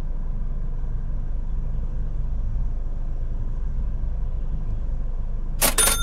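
Steady low rumble of the car idling, heard from inside the cabin. Near the end comes a cash-register "ka-ching" sound effect: a short sharp crash, then a bright bell that keeps ringing.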